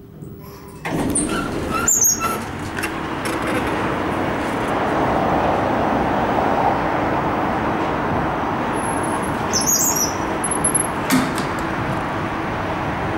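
Elevator doors opening about a second in, letting in a steady noisy station ambience, with a few high squeaks and a knock around ten seconds in as the glass doors slide shut.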